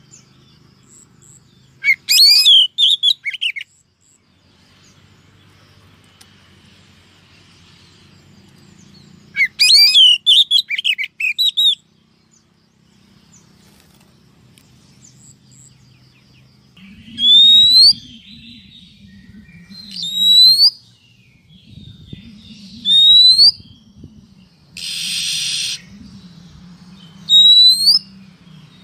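Female oriental magpie-robin calling: two quick chattering song phrases, then four single rising whistled notes a few seconds apart, with one short harsh buzzy call between the last two, over a low steady hum.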